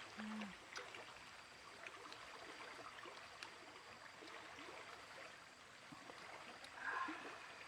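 Faint running water with a few light clicks; a brief low voice-like sound right at the start.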